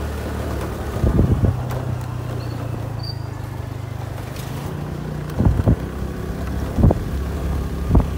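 A small vehicle's engine running with a steady low hum, its note shifting a little partway through. Wind buffets the microphone in short gusts several times.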